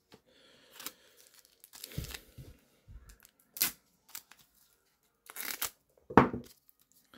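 Crinkling and tearing of a trading-card pack wrapper handled by gloved hands, in about five short, separate rustles; the loudest comes a little after six seconds in.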